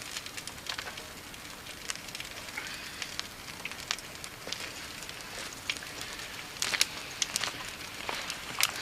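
Freshly lit campfire of small sticks crackling, with irregular sharp pops over a soft hiss of burning, a few louder pops near the end.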